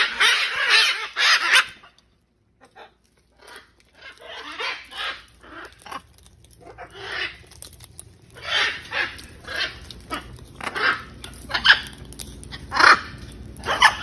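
Macaws squawking with harsh, raspy calls: a loud burst at the start, a pause of about two seconds, then a string of shorter squawks.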